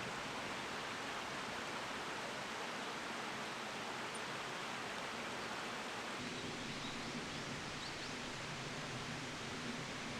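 Steady rushing noise with no distinct events. About six seconds in its character shifts and a faint low hum joins it.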